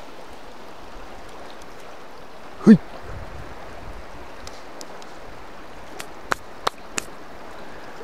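River water flowing with a steady rush. A brief low vocal sound comes about a third of the way in, and a few sharp clicks come near the end.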